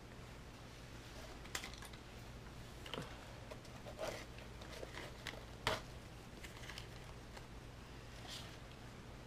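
Light scattered clicks and taps of pens being handled and set into fabric pen pockets, the sharpest click a little before the six-second mark, over a faint steady low hum.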